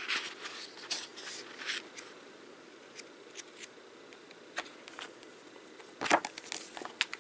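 Pages of a softcover art book being flipped by hand, the paper rustling in short bursts. About six seconds in, the book is closed and turned over, giving a louder cluster of paper rustles and handling knocks.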